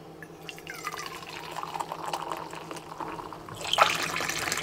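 Liquid poured from a stainless steel pot into an insulated metal mug. About three and a half seconds in, a short knock and then a louder stream of water running from the spigot of a plastic water purifier jug into the mug.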